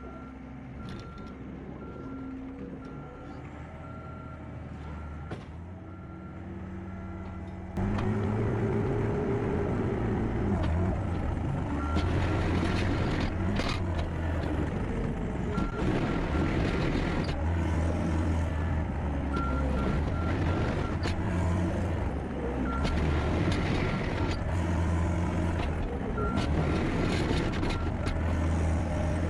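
John Deere skid steer's diesel engine running with its backup alarm beeping in an even series. About eight seconds in the engine gets much louder and stays loud, with the beeping stopping and starting in runs.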